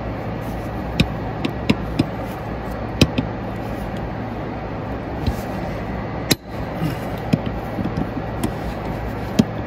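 Irregular metallic clicks and knocks of a long spanner being worked on the fan-belt tensioner bolt of a DAF CF85 truck engine, with one sharp knock a little over six seconds in. A steady hum runs underneath.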